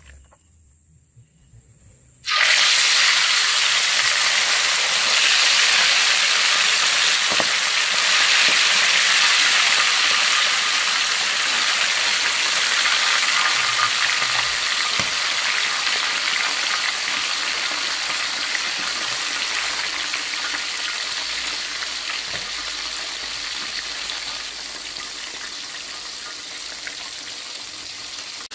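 Catfish pieces deep-frying in hot oil in a wok, a loud, steady sizzle. It starts suddenly about two seconds in and slowly dies down.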